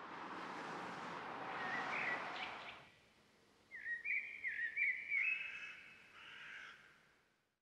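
A swell of steady noise fades in and dies away about three seconds in; then a bird calls several times, short calls that glide up in pitch, followed by a longer held note that fades out.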